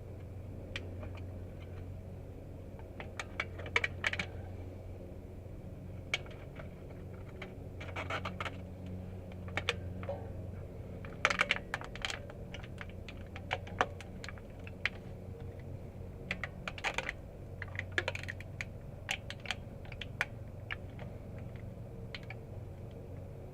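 Irregular clusters of light, sharp clicks and taps, like small hard objects being handled, over a steady low hum.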